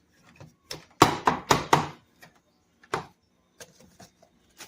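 Hard plastic knocks and clatters from the coffee maker's grinder parts being handled: a quick run of about five loud knocks about a second in, one more knock near three seconds, then a few faint ticks.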